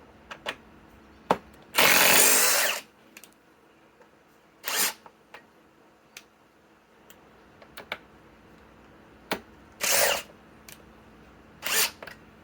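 RIDGID cordless impact driver and subcompact impact wrench driving 4.5-inch TimberLok structural screws into wood. One loud burst of about a second near the start, then three shorter bursts spread through the rest, with light clicks in between.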